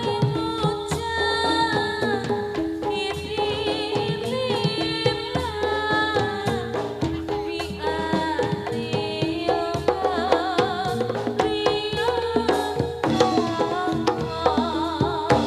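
Javanese gamelan music accompanying a jathilan dance: hand-drum (kendang) strokes over sustained metallophone tones, with a wavering high melody bending in pitch above them.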